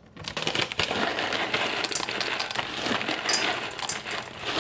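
Frozen green peas poured from a plastic bag into a stainless steel mixing bowl: a dense run of small clicks and rattles as the hard peas land.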